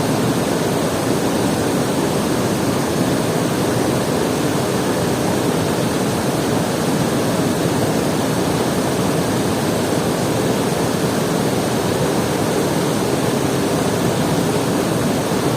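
Steady, unbroken rushing of running water, like a waterfall, with no changes or distinct events.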